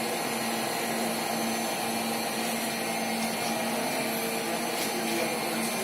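A CNC machine running, a steady mechanical whir with a constant low hum.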